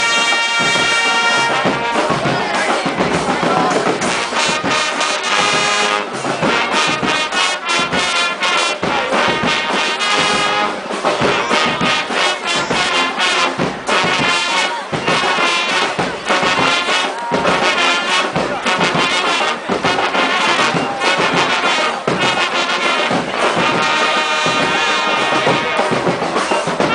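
Street brass band playing loudly: trumpets and trombones over drums keeping a beat, the horns holding long chords at the start and again near the end.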